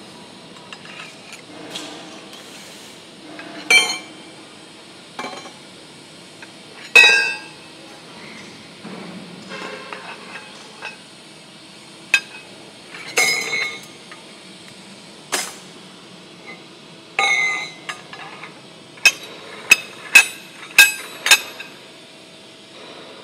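Steel slitter blades and spacer rings clinking and ringing against each other and the arbor shaft as they are handled by hand on a slitting machine. The sharp metal knocks are scattered, with a quick run of five or six near the end.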